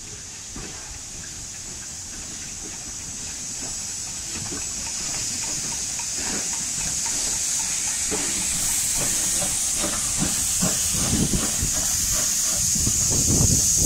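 USATC S160 2-8-0 steam locomotive hissing steam from its open cylinder drain cocks, getting louder as it draws level. Knocking beats from the engine and running gear build up in the second half.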